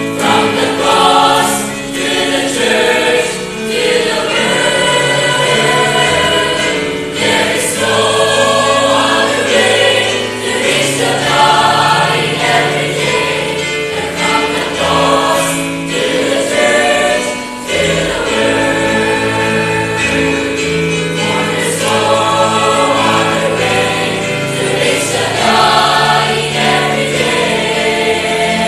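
Mixed choir of young men and women singing a Christian hymn, with sustained sung lines changing every second or so.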